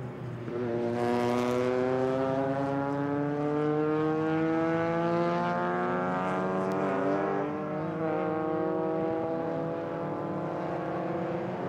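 A racing car's engine under long, steady acceleration, its pitch climbing slowly for about seven seconds, wavering briefly near the eight-second mark, then holding.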